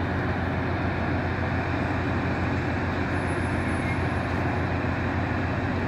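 Mount Washington Cog Railway locomotive running as it moves its passenger coach slowly along the rack track: a steady low engine drone.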